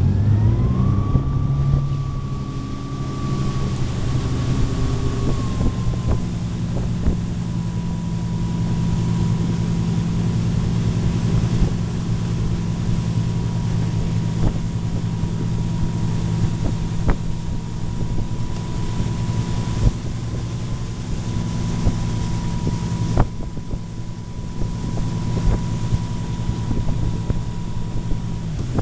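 Tow boat's engine pulling hard as it hauls a hydrofoil skier up out of the water, then settling to a steady cruise. A thin steady whine rides above it, and wind buffets the microphone.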